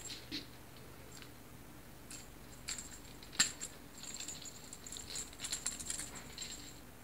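Light metallic jingling and clicking, a few scattered ticks at first and a close run of them from about four to six and a half seconds in.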